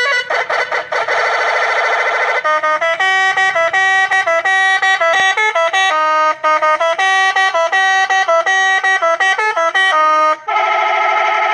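Electronic 'telolet' bus-horn sound module sounding through a toa horn loudspeaker, playing a multi-tone horn melody: a warbling chord for the first couple of seconds, then a run of quick stepped notes, switching to a new held chord about ten and a half seconds in.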